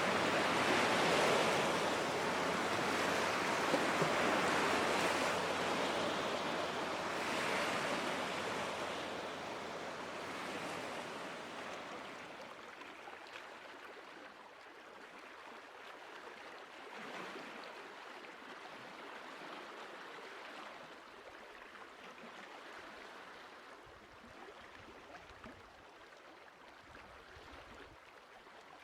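Lake waves washing in, with a few swells in the first ten seconds, then dying down to a soft, quieter wash.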